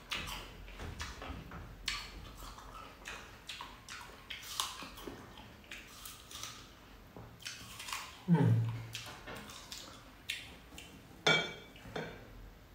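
Person chewing juicy fruit close to the microphone: a run of short wet clicks and smacks, with a brief hummed 'mm' about eight seconds in and a sharper click a few seconds later.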